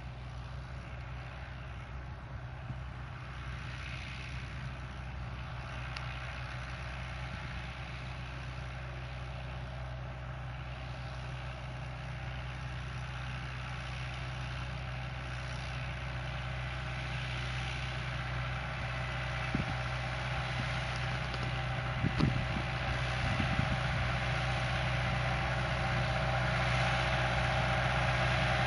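Fiat 65-46 DT tractor's four-cylinder diesel engine running steadily as it pulls a pneumatic seed drill at work. It grows gradually louder through the stretch, with a few short knocks near the end.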